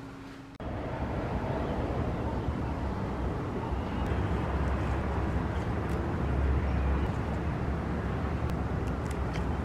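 Steady outdoor background rumble, the low hum of a city around a balcony, starting abruptly about half a second in and swelling briefly around six seconds in. A few faint snaps near the end as lettuce leaves are torn off at the stem.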